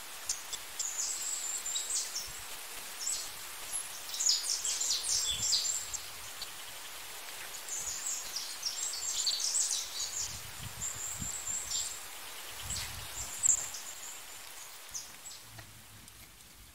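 Rural outdoor ambience: small birds chirping and twittering in bouts, with the rustle of leafy plants and a few soft footfalls as someone walks through a field after dogs.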